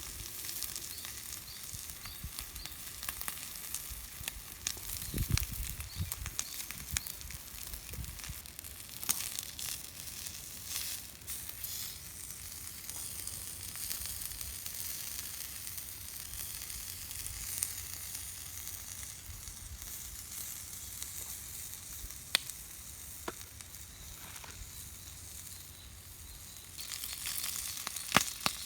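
Food sizzling on a small iron griddle over a wood stove: a steady frying hiss with scattered sharp pops. A few dull knocks come about five to seven seconds in.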